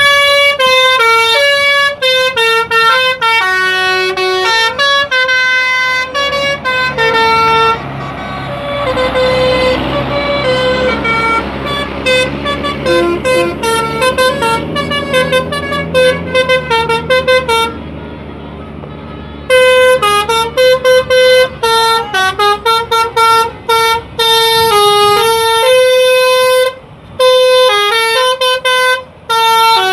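Bus 'telolet basuri' horn: a multi-tone musical air horn playing a fast tune of short stepped notes, broken by a short pause about eighteen seconds in.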